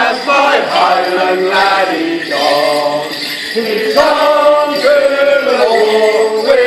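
Morris dance tune played live with held, stacked notes, with the dancers' leg bells jingling in time to the steps.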